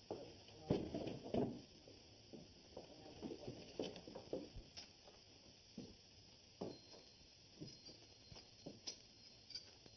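Steady hiss from an old film soundtrack with scattered soft knocks and rustles, irregular and unevenly spaced, as a bottle and small glasses are handled. The loudest knocks come about a second in.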